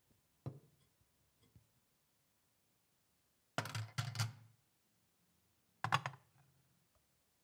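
Handling knocks on a hard surface: a light knock about half a second in, a short double clatter around four seconds in as a digital kitchen scale is set down on the workbench, and another knock about six seconds in as the rusty steel meat cleaver is laid on the scale.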